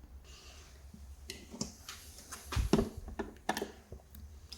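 Plastic cover of a wall-mounted garage door push-button switch being worked off by hand: a scatter of light clicks and knocks, the loudest cluster about two and a half seconds in.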